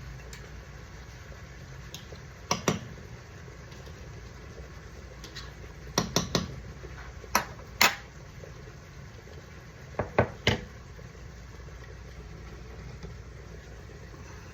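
A metal cooking utensil knocking and scraping against a pan as ground beef is stirred while it browns, in a few short clusters of clanks at irregular intervals over a steady low hum.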